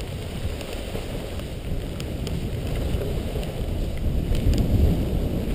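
Wind rushing over the microphone while riding downhill, with the hiss of a board sliding through powder snow.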